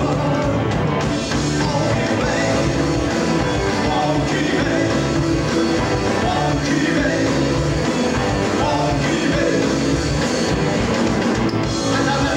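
Live rock band playing loudly on amplified electric guitars, with a singer.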